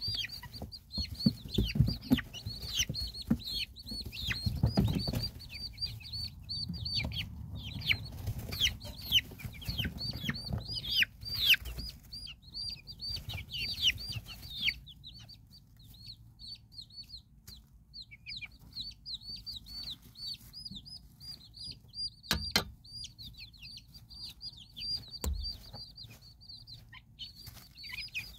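Silkie chicks peeping almost without pause, many short high peeps that fall in pitch, busiest in the first half. A low rumble sits under them in the first half, and two sharp knocks come in the second half.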